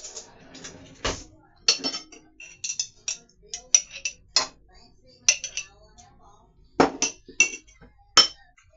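Kitchen clatter: dishes, jars and utensils clinking and knocking against one another in about nine irregular sharp strikes with a ringing, glassy edge.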